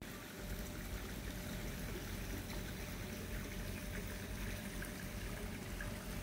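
Faint, steady rushing background noise.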